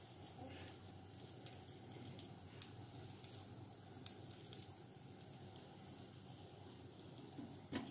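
Faint sizzling of papads on a hot iron tawa over a low gas flame, with a few light crackles and clicks.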